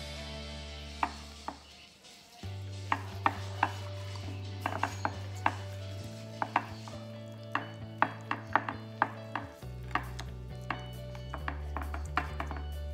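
Hands mixing marinade into pork ribs in a glass baking dish: a string of sharp, irregular clicks and knocks as fingers press the meat and tap against the glass. Soft background music with held low notes plays under it.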